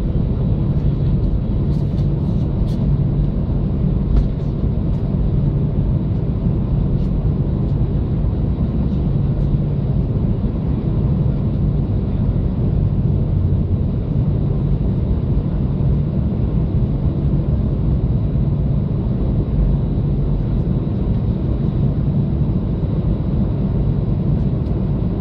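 Airbus A320 cabin noise beside the wing: the CFM56-5A1 turbofan engines running steadily at low power, a constant hum under an even rush, as the jet taxis onto the runway and lines up. A few faint clicks come about two seconds in.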